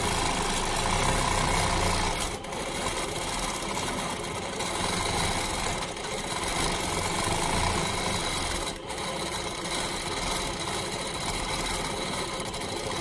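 Longarm quilting machine running and stitching steadily as its head is guided through free-motion curves, the sound dipping briefly twice, about two and a half and nine seconds in.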